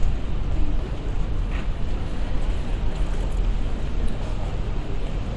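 Steady city street ambience: a continuous low traffic rumble with general urban noise.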